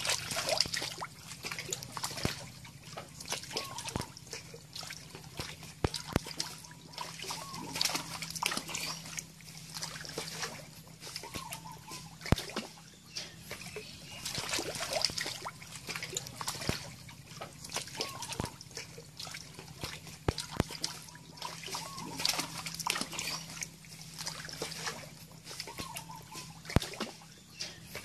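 Large frogs thrashing in shallow muddy pond water: irregular splashes, slaps and drips. Short faint chirps come every few seconds over a low steady hum.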